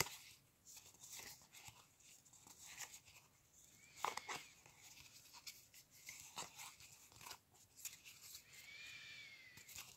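Faint rustling and light clicks of cardboard trading cards sliding past one another as a stack is flipped through by hand.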